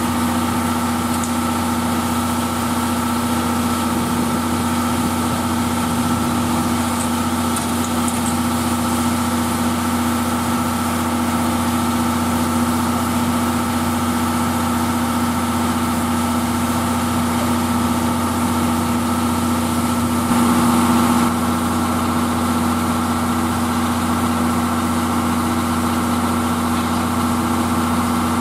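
D51 498 steam locomotive standing at rest with its machinery running: a steady hum made of several held tones over a hiss of steam. A short louder burst of hiss comes about 20 seconds in.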